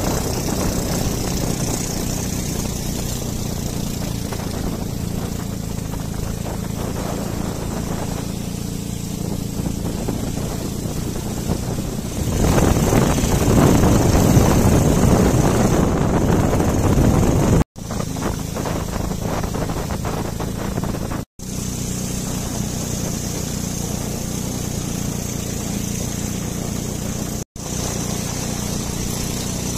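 Small motorboat's engine running steadily at speed, louder for about five seconds in the middle. The sound drops out for a split second three times.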